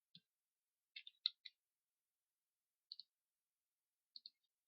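Computer mouse clicking over near silence: a single click, a quick run of four about a second in, a pair about three seconds in and another pair near the end.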